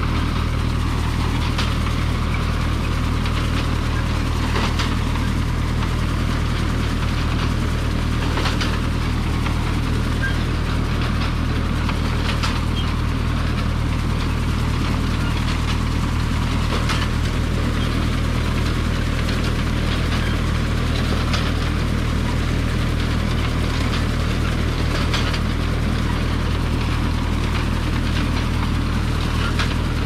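Tractor engine running steadily under load while it pulls a McCormick Deering grain binder, the binder's mechanism clattering along with a sharp clack about every four seconds.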